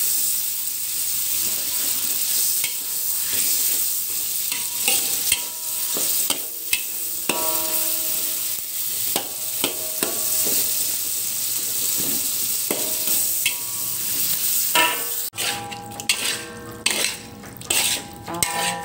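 Tomatoes and sliced shallots sizzling in hot oil in a wok while a metal spatula stirs and scrapes them, the scrapes now and then ringing off the pan. About 15 seconds in the sizzle thins and quicker, louder spatula scrapes take over as fried tofu pieces are stirred into the tomato sauce.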